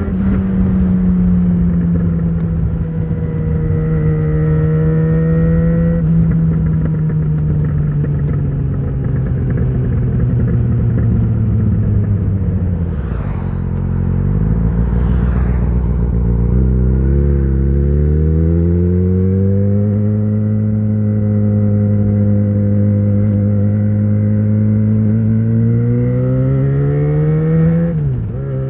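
2013 Yamaha XJ6's inline-four engine through an Ixil full exhaust with the dB killer fitted, under way. The revs ease off and drop low about halfway through, then climb again and hold steady at a cruise, with a quick dip near the end as it changes gear.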